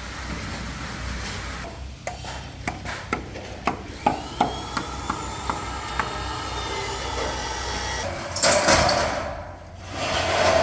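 Construction work: a run of sharp, irregular knocks and taps, then two louder, longer noisy bursts near the end.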